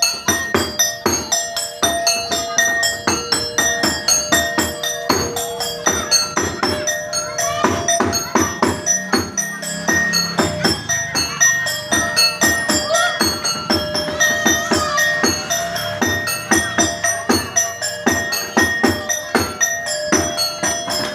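Fast, rhythmic percussion music: rapid drum and jingling strikes over steady metallic ringing tones, typical of the music that accompanies a topeng monyet monkey show.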